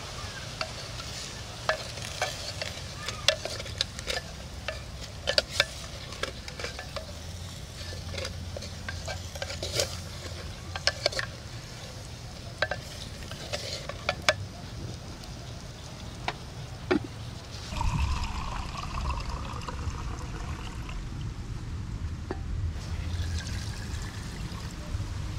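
Stirring and knocking inside a clay pot of simmering chicken soup, with many sharp clicks of a utensil against the pot over a steady hiss. About two-thirds of the way in the sound changes as water is poured into the pot.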